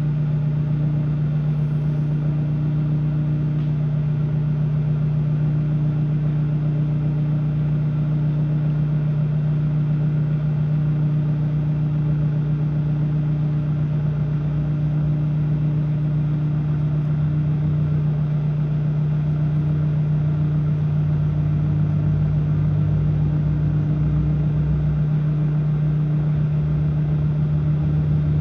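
Microwave oven running: a steady, unbroken electrical hum with its fan, held through a long heating cycle.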